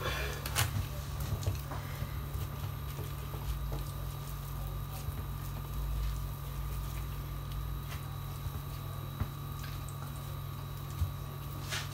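Soft, faint rustles and light taps of hands handling thin pastry sheets and laying them over a filling, over a steady low hum with a thin high tone.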